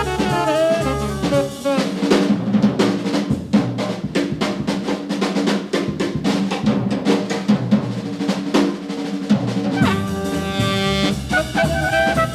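Jazz background music. A drum kit solo of fast snare and cymbal strokes takes up most of it, and melodic instruments come back in near the end.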